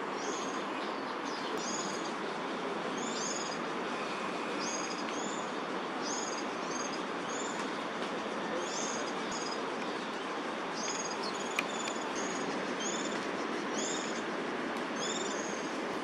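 A small bird chirping over and over, short high down-slurred chirps about once or twice a second, over a steady rushing background noise.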